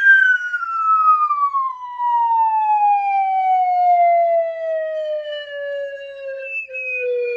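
Falling-whistle sound effect: one long whistle tone that starts abruptly and glides slowly and steadily down in pitch, from high to fairly low, without a break.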